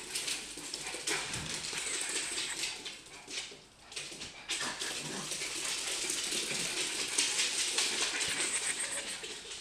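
Small Maltese/Shih-tzu dog running on a hardwood floor, its claws clicking and skittering in a quick, irregular patter that is loudest near the end.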